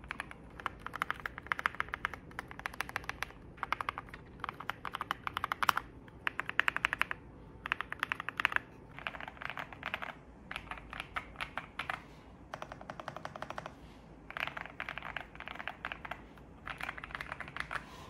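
Typing on an Ajazz AK870 gasket-mounted mechanical keyboard with Hyacinth linear switches and PBT keycaps: fast runs of keystrokes, each lasting a second or so, broken by short pauses.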